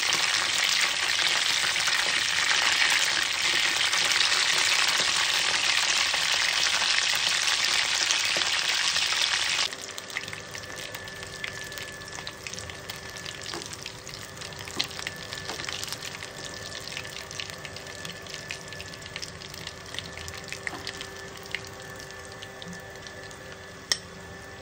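Batter-coated prawns deep-frying in hot oil in a kadai on low flame: a loud, dense sizzle that drops suddenly to a quieter crackling about ten seconds in, with a few faint clicks.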